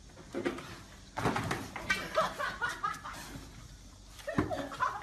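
Excited voices and laughter with a few sharp thuds. The last thud comes near the end, as a man slips and falls on wet ground beside an overturned plastic basin.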